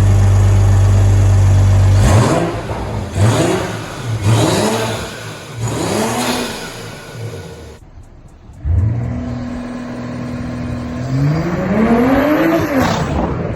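2021 BMW M340i's turbocharged 3.0-litre inline-six, fitted with a CTS cold air intake, running steady at a high idle for about two seconds and then revved four times in quick succession. After a short break it runs steady again, then climbs sharply in pitch near the end.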